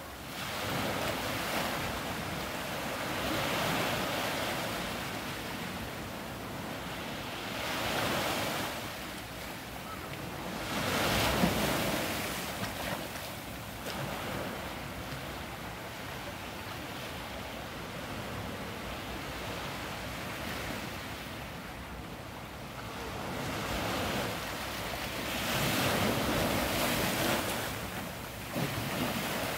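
Small surf breaking and washing over volcanic rocks and sand at the shoreline, a gentle roar that swells and ebbs with each wave every few seconds. The strongest surge comes about a third of the way through.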